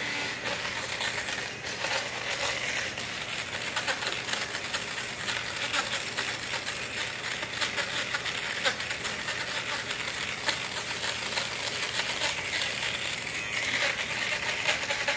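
Electric fabric shaver running steadily over boucle upholstery, a constant motor hum with fine crackling as its blades cut off fuzz and pills.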